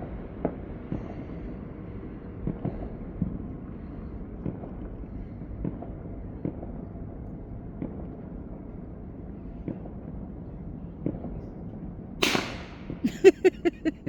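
Consumer fireworks: scattered faint pops over a low background, then about twelve seconds in a loud firework bang followed by a rapid string of sharp cracks.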